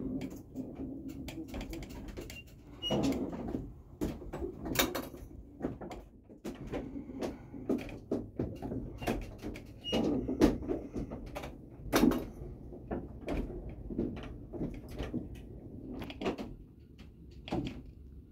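The wooden running gear of a windmill turning: wooden cogs meshing with a spinning lantern pinion give irregular knocks and creaks, with a few louder knocks in the middle. The mill is running without grinding.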